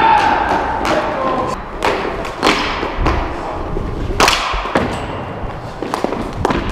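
Ball hockey play: irregular sharp clacks and thuds of sticks and the ball striking the rink floor and boards, about ten knocks spread unevenly.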